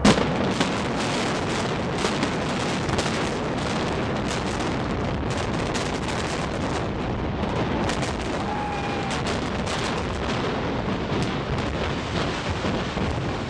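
Controlled-demolition implosion of the Kingdome's concrete dome: a sharp bang, then a dense, rapid crackle of many explosive charges going off one after another, mixed with the rumble of the structure coming down.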